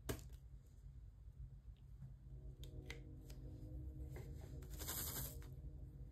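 Diamond-painting work: small plastic clicks and taps of a drill pen and a plastic drill tray, with a brief rattle of loose resin drills a little before five seconds in.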